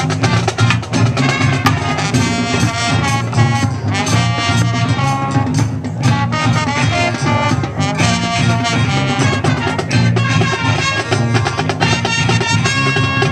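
High school marching band playing: brass section carrying the melody over drumline and front-ensemble percussion, loud and continuous.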